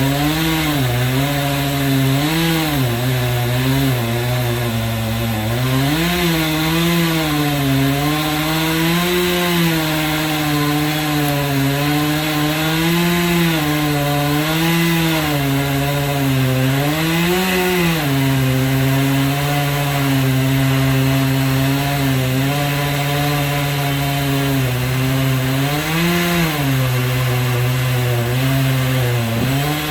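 Chainsaw on a homemade chainsaw mill running hard while ripping a walnut log, its engine pitch sagging and picking up again every few seconds as the cut goes on.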